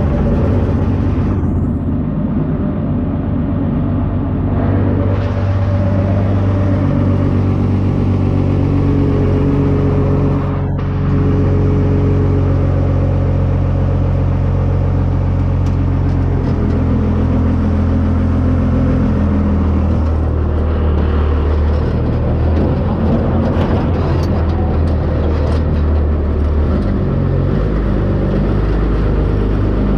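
A truck engine running steadily under way, its pitch stepping up and down several times as the speed changes, with a brief dip in loudness about ten seconds in.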